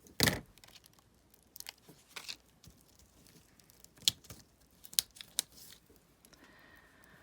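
Scissors cutting through thick matchbook paper: one loud cut just after the start, then a few lighter snips and paper rustling.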